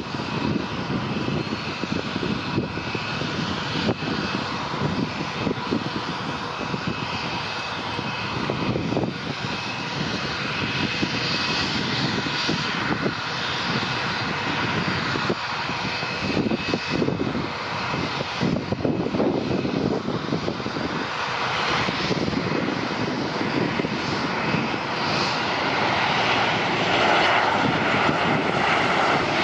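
Boeing P-8A Poseidon's twin CFM56 turbofans on final approach with gear down. A continuous jet engine noise with a steady fan whine grows gradually louder as the aircraft nears and is loudest near the end.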